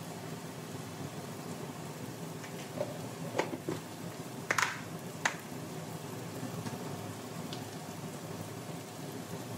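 Chopped onion, tomato and green chilli sizzling in oil in a nonstick frying pan: a steady hiss, with a few short clicks near the middle.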